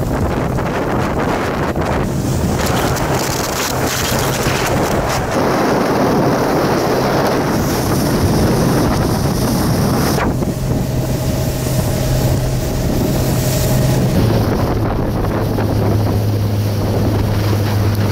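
Outboard motor of a small boat running steadily under way, its low hum shifting in pitch about two-thirds of the way through, under heavy wind buffeting the microphone and water rushing past the hull.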